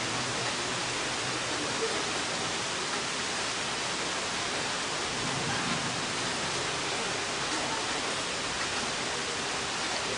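Rain falling steadily, an even hiss of water.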